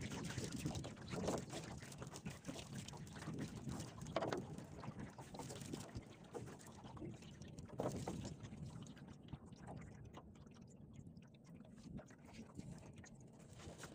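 Water splashing and dripping as a wet fishing net is hauled hand over hand into a small boat. A few louder splashes come in the first half, and quieter dripping follows.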